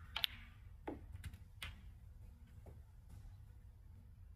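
A few short, sharp clicks and taps, a pair close together just after the start and then three or four single ones, over a faint steady low hum.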